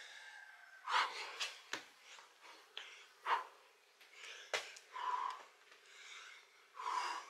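A man breathing hard in short, forceful exhales, panting during a set of burpees with push-ups, with a couple of sharp thumps.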